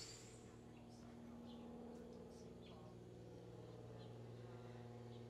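Near silence: a faint steady low hum, with a few faint short high chirps scattered through it.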